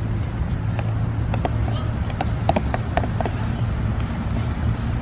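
Metal spoon stirring thick liquid-detergent slime in a plastic tub, with scattered light clicks and taps as the spoon knocks the tub, over a steady low rumble.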